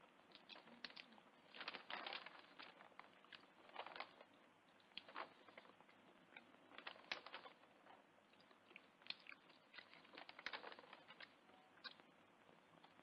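Faint eating sounds: irregular clicks and short scrapes of a spoon on a plate, with chewing, loudest in small clusters a few seconds apart.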